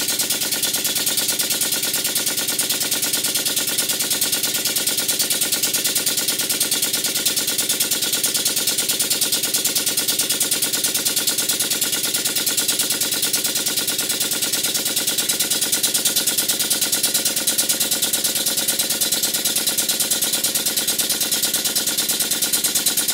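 Stuart Models beam engine running fast on compressed air, giving a rapid, even clatter of knocks from its moving parts. The clunkiness is what the owner puts down to the valve in the valve chest needing adjustment after the rebuild.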